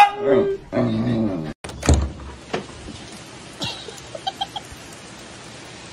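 A dog howling, a long held whine that ends about half a second in, followed by a shorter, lower cry. About two seconds in there is a single thump, then a low background with a few faint, short chirps.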